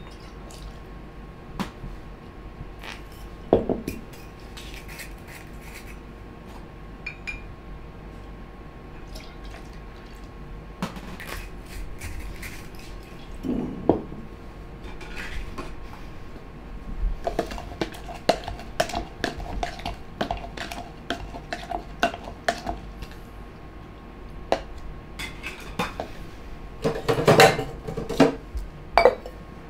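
Bar tools and bottles clinking and knocking while a cocktail is made: a metal jigger, shaker tins and glass liqueur bottles set down on the bar, with short pours. The knocks are scattered throughout over a faint steady hum, with a louder cluster of clanks near the end.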